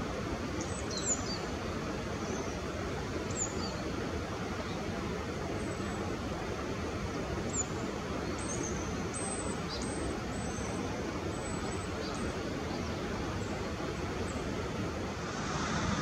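Steady outdoor background noise with about ten short, high chirps from small birds scattered through most of the stretch; the background grows louder near the end.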